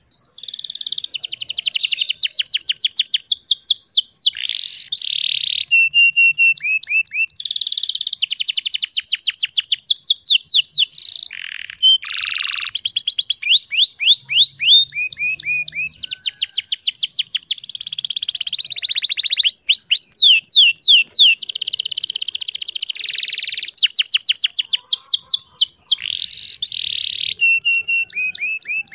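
Domestic canary singing a continuous song of fast trills and rolls. It moves from one run of rapid repeated notes to the next every second or two, with a few short breaks.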